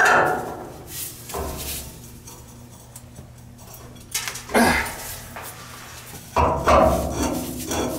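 Pipe wrenches clanking on threaded black iron pipe as a fitting is turned, with short squeaks from the joint. The loudest knock comes at the very start.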